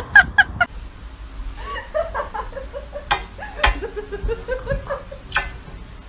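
A person laughing in short bursts. There are a few quick high squeaks at the very start and two sharp clicks around the middle.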